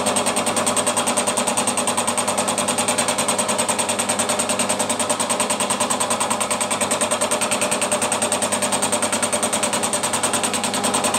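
Milling machine fly cutter taking a light finishing cut across a bar face: steady running with a rapid, even pulsing beat and a steady high whine.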